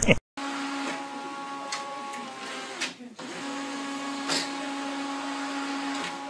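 Canon all-in-one inkjet printer running: a steady motor whir with a low hum, a brief pause about three seconds in, and a few sharp clicks from its mechanism.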